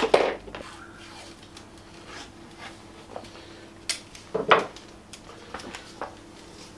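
A paper template rustling and masking tape being pulled and pressed on: scattered rustles and clicks, with louder handling noises at the start and again about four and a half seconds in, over a faint steady hum.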